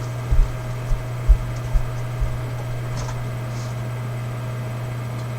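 A steady low hum, with a handful of soft, low thumps in the first two seconds: footsteps walking away.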